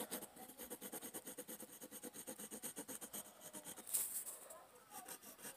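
Quick, scratchy drawing strokes on paper, about six a second, sketching the outline of a cube, with one louder stroke about four seconds in.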